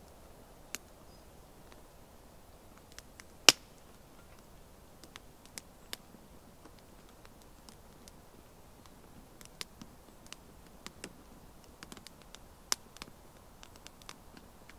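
Small wood fire crackling in a box stove: scattered sharp pops and snaps over a faint hiss, the loudest snap about three and a half seconds in and another strong one near the end.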